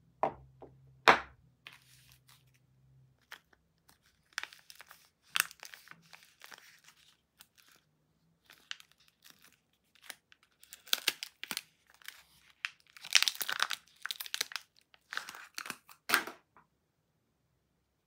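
Paper soap wrapper being unfolded and torn off a bar by hand: irregular crinkling and tearing paper, densest about thirteen seconds in and stopping near the end. Two sharp knocks near the start.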